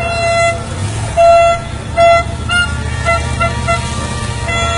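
Vehicle horn honking again and again: several blasts of about half a second, the loudest a little over a second in, then a quick run of short toots, over the steady low rumble of an engine.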